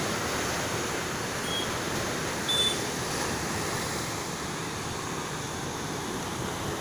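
Sea waves washing on the shore with wind on the microphone, a steady rushing noise. Two short high-pitched chirps come through about a second and a half and two and a half seconds in.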